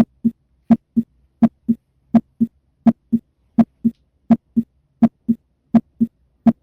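Normal first and second heart sounds, the "lub-dub", heard through a stethoscope at the mitral area: a steady, regular rhythm of paired thuds, about nine beats at a little over 80 a minute, with clean silence between beats.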